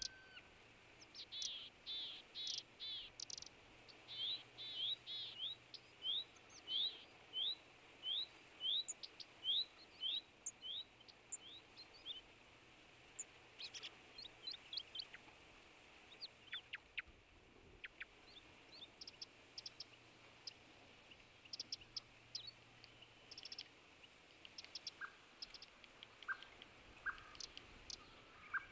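Small songbirds singing and calling: a run of short rising whistled notes, about two a second, for the first ten seconds or so, then scattered chirps and short calls.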